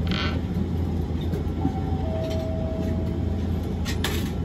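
Cabin running sound of a Hiroshima Electric Railway 1000 series Green mover LEX low-floor tram: a steady low rumble, with a brief hiss right at the start and another near the end, and a faint steady whine partway through.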